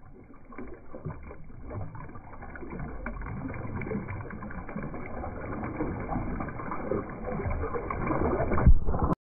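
Small lake waves sloshing and washing over pebbles right at the microphone, muffled, rising gradually in level with the loudest splash near the end before the sound cuts off suddenly.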